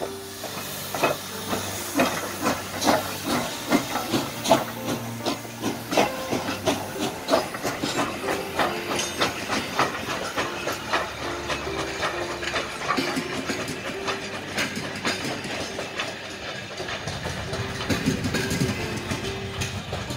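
Soviet class L steam locomotive (Л-2180) pulling away: steam hissing from the open cylinder drain cocks under evenly spaced exhaust chuffs that start about two a second and quicken as it gathers speed.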